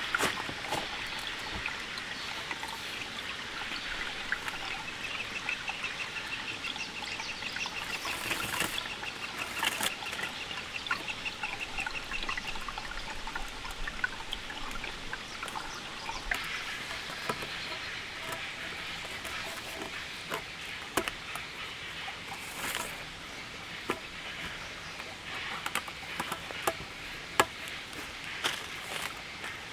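Rain falling and dripping: a steady hiss with scattered drops and taps. A high, rapid trill runs from about five to twelve seconds in.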